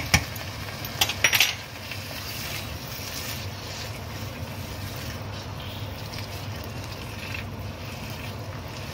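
A few sharp clicks of a utensil knocking against a non-stick frying pan about a second in, then a spatula stirring and scraping through a curry base of onions and tomatoes as it bubbles and sizzles steadily in the pan.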